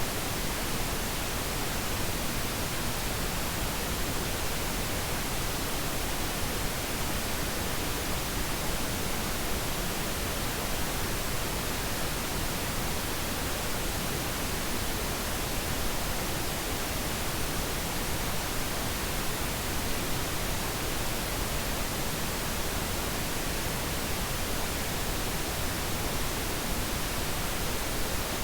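Steady, unbroken pink noise: an even hiss spread across all pitches, with no change in level or character.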